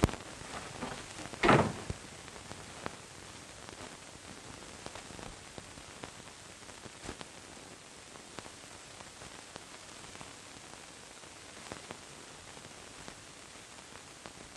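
Steady hiss and faint crackle of an old optical film soundtrack, with one loud thud about a second and a half in, a door shutting.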